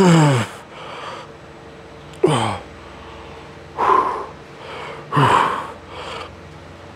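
A man's loud grunts of effort, four short cries each falling in pitch, roughly one every one and a half seconds, like a lifter straining through the last reps of a hard set.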